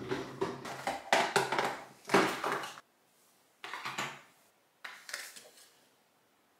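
Small hard plastic items clattering and rattling as they are handled on a counter. There are about three seconds of busy rattling, then two short bursts a little over a second apart.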